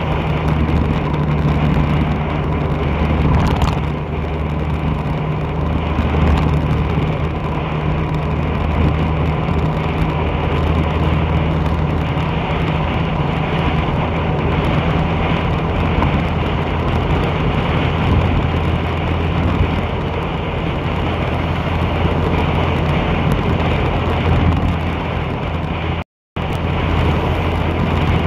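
A vehicle engine running with a steady low hum while moving, under road and wind noise. The sound drops out for a split second near the end.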